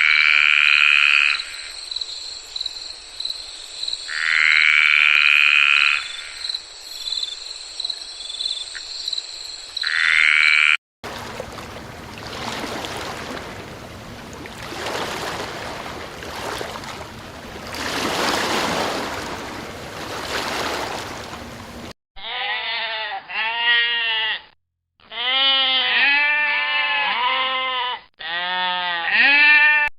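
Three separate animal-call recordings in a row. The first is frogs calling: loud calls about a second and a half long, repeating every three to four seconds over a steady high trill. It is followed by about ten seconds of noisy sound without clear calls, then several short bursts of rapid, quavering, bleat-like calls.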